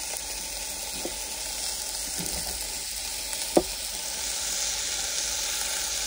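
Diced onions and garlic sizzling steadily in hot olive oil in an electric self-heating pot. A few knife knocks on a wooden cutting board sound over it, the loudest about three and a half seconds in.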